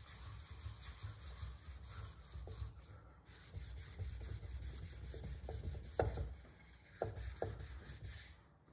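A dished 1-micron ceramic whetstone being flattened, rubbed back and forth against a flattening plate: quick, gritty scraping strokes, turning irregular after about three seconds, with a few sharp clacks about six and seven seconds in.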